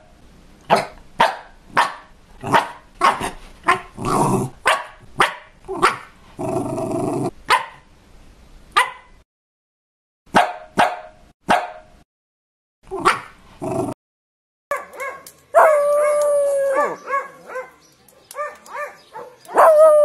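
Miniature pinscher barking: sharp, rapid barks about two a second, with a rough, noisy stretch about a third of the way in. After a short pause near the three-quarter mark, longer pitched cries follow, each holding its pitch and then dropping away.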